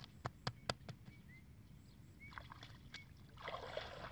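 Hands slapping wet mud packed around a plastic basin, three sharp slaps in the first second, then water splashing near the end as the hands dip into the lake.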